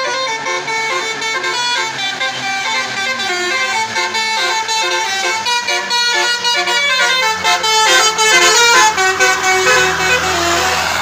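Multi-tone bus air horn of the 'telolet' kind playing a quick melody of stepped notes. A low engine rumble comes up near the end.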